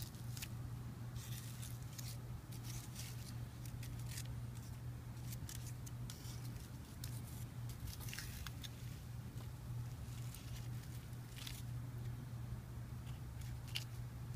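A stick prodding and levering the charred, melted plastic of a microwaved CPU fan, giving scattered faint crunches and clicks from the brittle burnt plastic, over a steady low hum.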